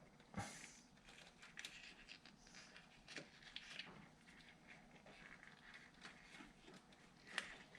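Faint clicks and rubbing of hands working a rubber headlight boot and its wiring, with a sharper click about half a second in and another near the end.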